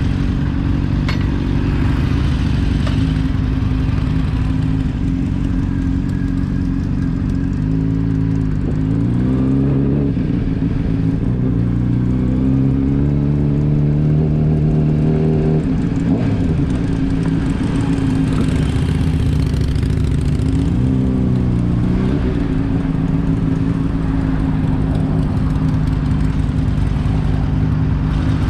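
Motorcycle engine running under way, its pitch climbing as it accelerates about ten seconds in, dropping sharply at a gear change around the middle, then dipping and climbing again a few seconds later before settling to a steady cruise.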